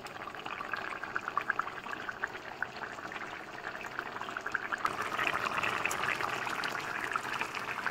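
Bottle gourd curry boiling in an aluminium kadai, a dense patter of small bubbling pops that grows louder about five seconds in.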